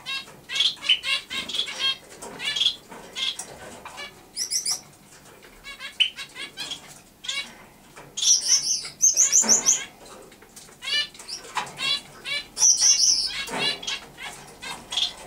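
Java sparrow singing: a long run of quick clicking and wavering chirps, with louder high trills about eight to ten seconds in and again near thirteen seconds.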